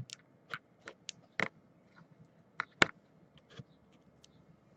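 About a dozen scattered light clicks and taps from trading cards being handled, the sharpest about three seconds in.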